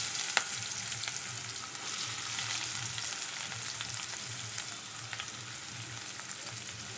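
Chopped onions and curry leaves sizzling in hot oil, with scattered light pops and crackles; the sizzle eases slowly after the onions go in.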